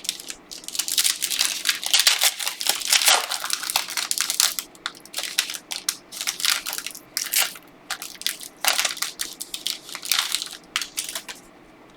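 Plastic trading-card wrapping crinkling and crackling as it is torn open and handled, in a dense run of irregular crackles that stops shortly before the end.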